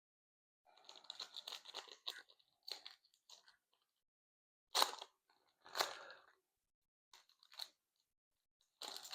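Crinkly wrapper of a Panini Prizm trading card pack being torn open and crumpled, followed by several short, sharp crinkles as the pack and cards are handled.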